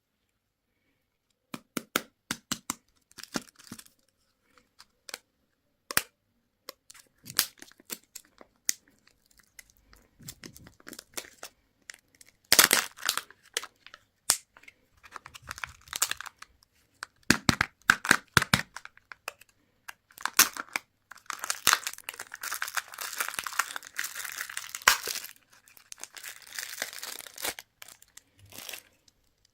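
Candy wrappers and plastic packaging being torn open and crinkled by hand, with many sharp clicks and snaps. A long stretch of steady crinkling fills the second half.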